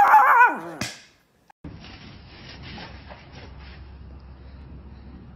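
A Chihuahua howling "awroooo" in a wavering voice, its pitch sliding down until it ends within the first second. After a short gap comes faint scraping and rustling of a goat rolling on its back on dry dirt and hay.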